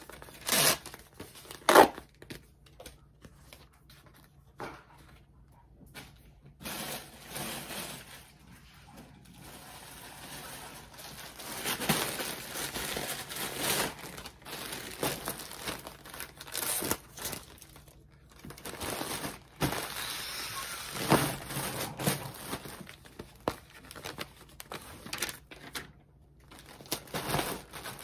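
Plastic poly mailer bags crinkling and rustling as they are opened, filled and pressed flat, with two sharp tearing sounds in the first two seconds.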